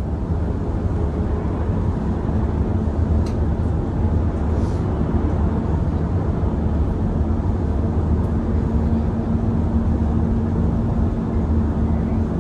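Steady road and engine noise heard from inside a moving vehicle's cabin: a low rumble under a wash of tyre noise, with a steady hum joining about two seconds in.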